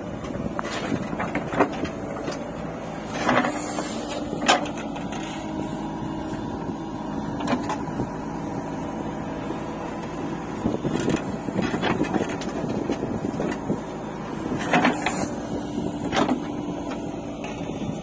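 JCB 3DX backhoe loader's diesel engine running steadily under load as it works its hydraulic arm, with several sharp thuds and clatters of soil clods dropping from the bucket into a steel tractor trolley.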